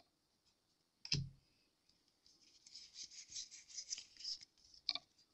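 Pokémon trading cards being handled: a thump about a second in, then a couple of seconds of crisp, papery card-on-card rustling as a stack of cards is slid and shuffled between the hands, ending in a sharp click near the end.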